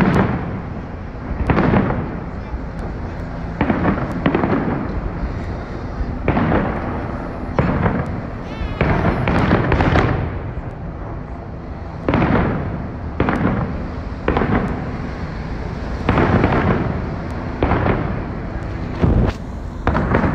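Aerial fireworks shells bursting overhead in a rapid, irregular series of loud bangs, roughly one every second or so, each trailing off in an echo over a steady background rumble.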